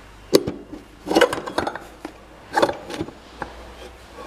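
Hard plastic body and steel steering tube of a children's electric ride-on scooter knocking and rattling as they are fitted together, in three or four short sharp clusters about a second apart.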